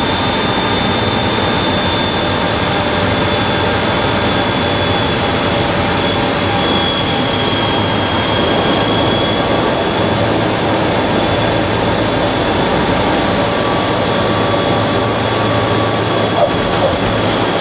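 A YS-11's Rolls-Royce Dart turboprop engines heard from inside the cockpit as the airliner rolls along the runway: a loud, steady drone with a high whine held over it.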